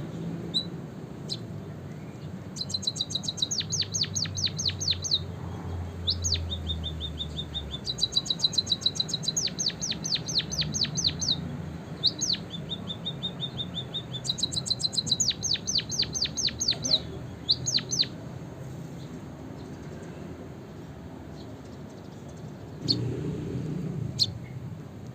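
White-headed munia (emprit kaji) singing canary-style song: phrases of rapid, high repeated notes and trills, with short pauses between them. The singing stops about two-thirds of the way in, leaving only a few single chirps over a low hum.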